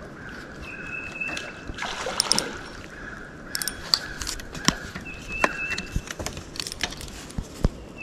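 Scattered clicks and light rattles of a fishing rod and reel being worked by hand, over a steady high hum. A short, high whistled note sounds twice, and there is a brief rush of noise about two seconds in.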